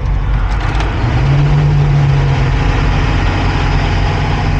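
Cat 349 excavator's diesel engine running steadily while the machine is turned, with a stronger engine note from about one to two and a half seconds in.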